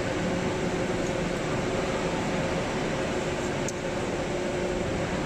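Steady machine hum with two constant tones running under it, from the 5000-ton hydraulic press and its power unit idling between strokes.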